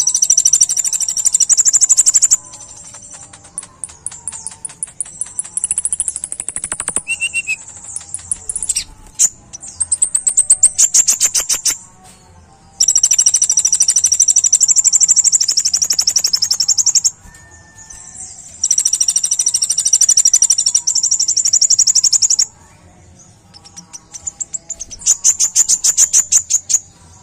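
Kolibri ninja sunbird singing: loud, very high, rapid trills in bursts of a few seconds each, with short pauses between.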